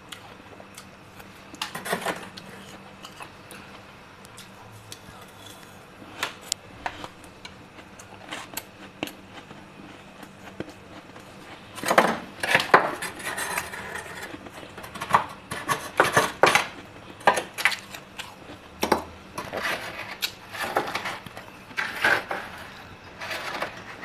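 Metal spoon scraping and scooping the frost built up in a freezer compartment: gritty, slightly crunchy scrapes and clinks, sparse at first, then coming thick and fast from about halfway.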